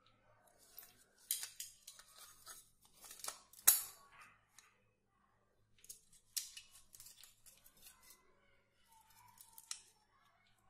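Handling of a taken-apart plastic toy gun and its wiring: irregular clicks, rattles and rustles of plastic parts and wires, with one sharp click a little over three and a half seconds in.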